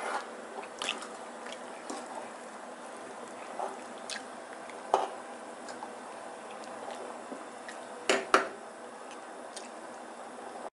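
Pot of water at a rolling boil, bubbling steadily as spaghetti is stirred in it with a fork. The fork clinks against the pot several times, loudest in two quick taps about eight seconds in.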